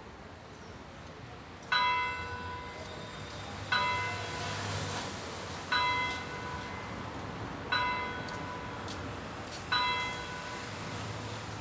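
A church bell tolling slowly: one bell struck the same pitch five times, one strike every two seconds starting about two seconds in, each strike ringing out before the next.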